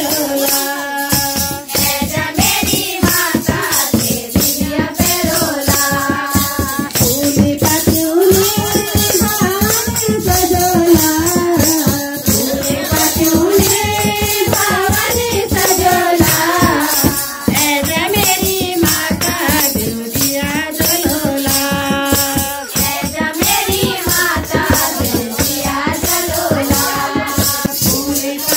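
Devotional kirtan singing with percussion keeping a fast, steady beat.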